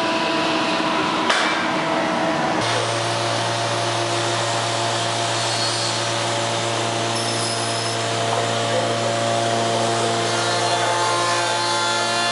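Soukup Crafter woodworking machining centre running with a steady mechanical hum and several held tones. About two and a half seconds in the sound changes abruptly to a lower, steadier hum.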